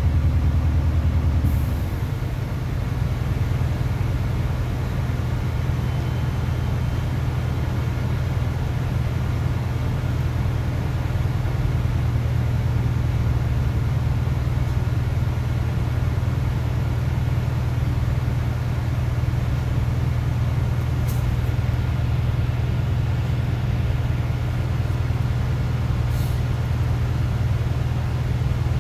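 LOTES city bus engine idling, heard from inside the passenger cabin as a steady low hum while the bus stands still; the hum changes pitch about two seconds in, and two brief clicks come later on.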